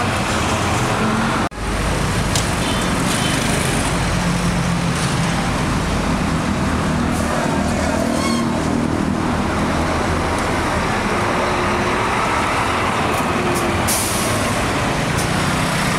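Scania coach's diesel engine running as the bus moves off slowly and passes close by, its low engine note steady with slight rises and falls. A sharp hiss of air starts near the end.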